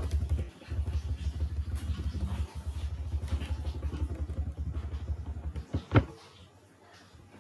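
A low, fast-pulsing engine rumble that stops about six seconds in, followed by a single sharp click.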